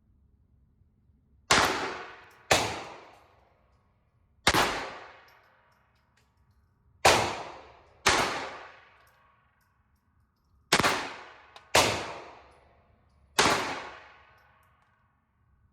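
Walther PPK/S .22 LR pistol firing eight shots at an uneven pace, some in quick pairs a second apart. Each sharp crack is followed by a ringing echo that dies away within about a second.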